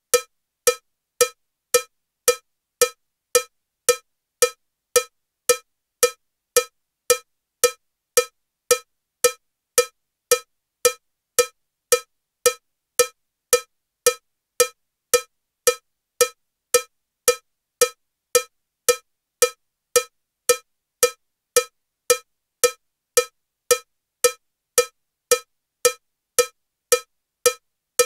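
Metronome ticking at 112 beats per minute with a cowbell sound: identical short, ringing cowbell strikes, evenly spaced just under two a second, all equally loud.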